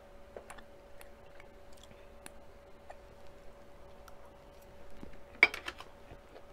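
Eating sounds: a metal fork clicking against a small glass bowl, with quiet chewing. A sharper, louder clink comes about five seconds in as the glass bowl is set down on the table.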